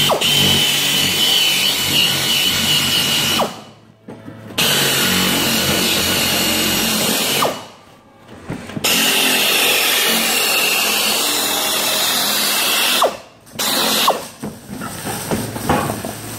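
Pneumatic air nibbler cutting through sheet-metal floor panel, running in three long stretches of several seconds each with a steady high whine, stopping briefly between them, then a few shorter starts near the end.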